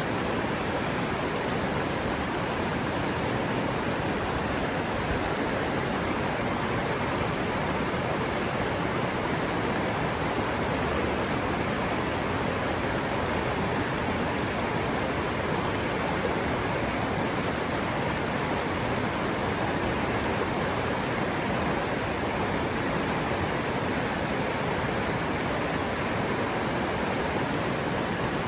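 River water running over rocks: a steady, even rushing with no change in level.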